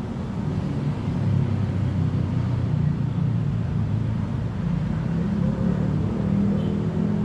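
Low, steady engine rumble of a motor vehicle running, its pitch wavering a little.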